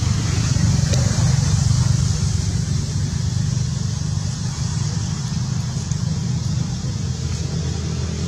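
A motor vehicle engine running steadily as a low rumble, with a steady high hiss above it.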